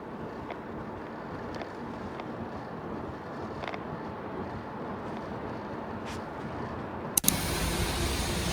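Car on the road: steady road and engine noise. About seven seconds in there is a sharp click, and the noise then runs louder with a steady low hum.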